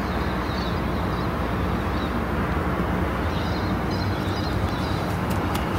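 Steady outdoor background noise with a low rumble, faint bird chirps and a few light clicks near the end.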